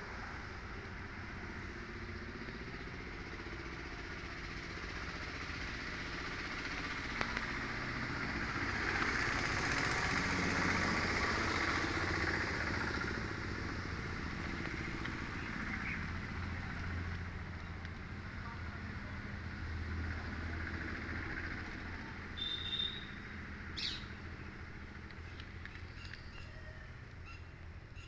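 Motor traffic: a vehicle's engine and road noise running steadily, swelling as it passes about ten seconds in and then fading. Two short high chirps sound about five seconds before the end.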